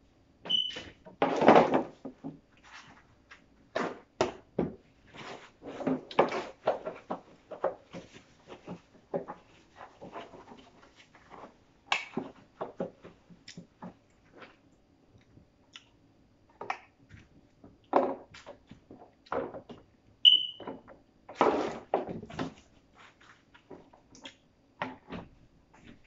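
Irregular knocks, clatter and rustling of plastic containers and vegetables being handled and set onto fridge shelves. Two short high beeps sound, one just after the start and another about 20 seconds in.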